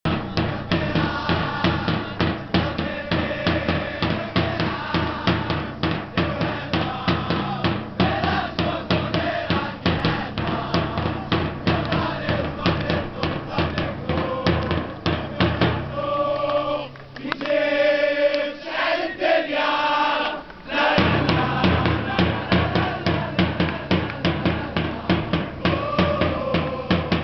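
Ultras supporters chanting in unison to steady, fast drumming; a little past the middle the drums stop for about five seconds while the voices sing on alone, then the drumming comes back.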